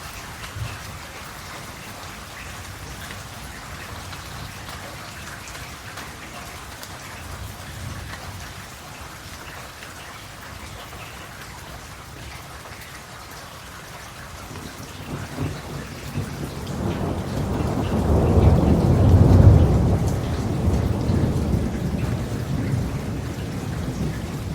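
Steady rain falling, with a long rolling rumble of thunder that swells up about two thirds of the way through, peaks and slowly dies away.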